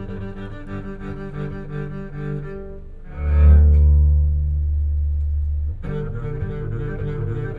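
Music with bowed strings and double bass played through a Toyota HiAce Premio's custom car audio system. About three seconds in, a very loud, deep bass note holds for about two and a half seconds, then cuts off suddenly as the strings come back in.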